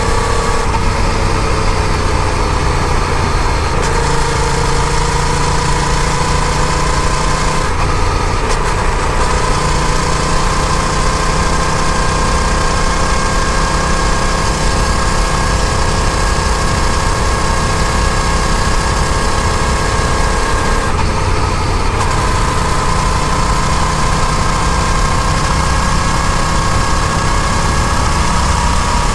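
Yamaha FZ-07's parallel-twin engine running under way, a steady drone whose pitch drifts slowly up and down. The throttle eases off briefly about 8 seconds in and again about 21 seconds in, then the pitch climbs again.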